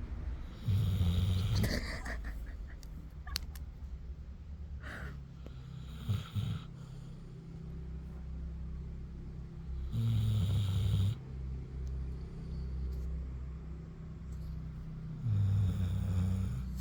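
A sleeping Labrador retriever snoring: a steady low rumbling breath with a louder snore about every five seconds.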